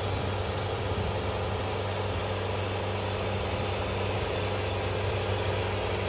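Portable band sawmill running steadily as its saw head cuts along a squared log, taking off the bark-covered top slab: an even engine drone with a low hum that holds level throughout.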